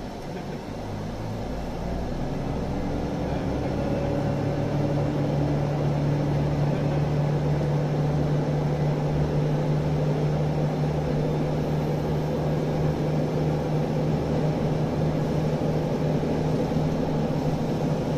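KiHa 75 diesel railcar's Cummins engines working as the train pulls away from the platform, heard from inside the carriage. The engine note builds over the first few seconds, then holds a steady drone with a low, regular throb under it.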